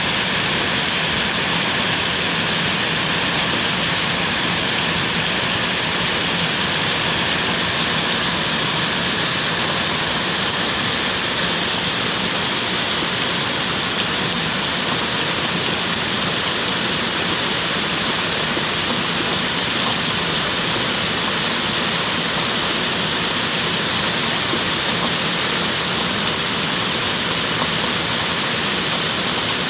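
Steady heavy rain, an even unbroken hiss of falling water.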